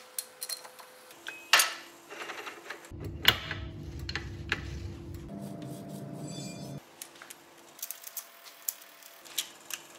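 Steel gears and synchronizer parts clicking and clinking as they are fitted onto the mainshaft of a ZF 16S 1820 truck gearbox, with one sharp metal knock about one and a half seconds in. A low steady hum comes in for a few seconds in the middle.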